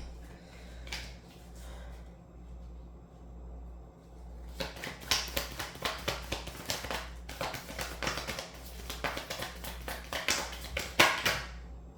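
Tarot cards being handled: faint handling sounds for the first few seconds, then from about four and a half seconds a fast, uneven run of light clicks and snaps.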